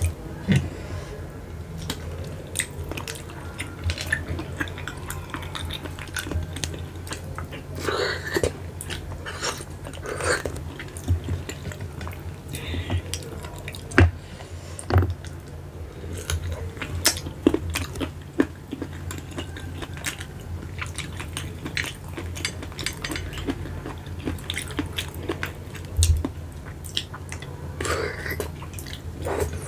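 Close-miked eating of spotted babylon snails (keong macan) in chili sauce: meat sucked from the shells and chewed, with shells clicking against a glass plate. A steady low hum runs underneath.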